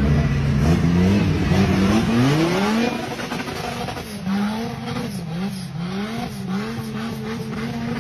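Five-cylinder engine revving hard as the vehicle works through mud: very loud for the first three seconds with a quick climb in revs, then a little quieter, the revs rising and falling several times.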